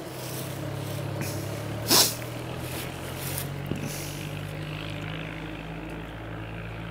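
A vehicle engine running steadily with a low hum, with one short, sharp hiss about two seconds in.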